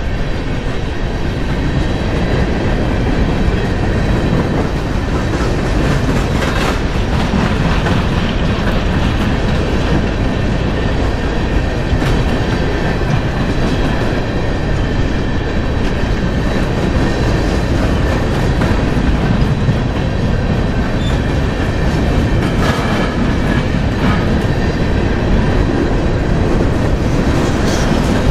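Freight train of coal hopper cars rolling past: a steady rumble of steel wheels on rail with a clickety-clack over the joints, and a few sharp metallic clanks.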